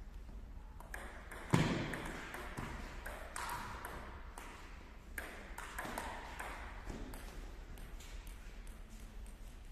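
Table tennis rally: the celluloid ball clicks off bats and bounces on the table in an irregular series of sharp taps, with one louder knock about a second and a half in. The taps echo in a large sports hall.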